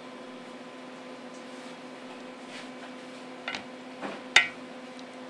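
Steady electrical hum of kitchen equipment, with a few faint clicks and one sharp knock about four seconds in.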